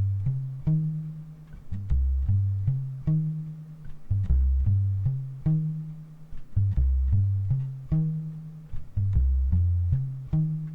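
Ibanez SRH500F fretless electric bass with tapewound strings and a foam bridge mute (Nino-mute Light Thump), plucked in a repeating low line of short, quickly damped notes, recorded direct. The mute gives it a thumpy upright-bass-like tone.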